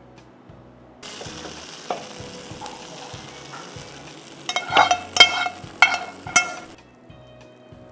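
Hot ghee with fried onions ladled onto haleem, sizzling as it hits the surface. The hiss starts suddenly about a second in, brings several louder sharp clicks and crackles about two-thirds of the way through, then cuts off abruptly.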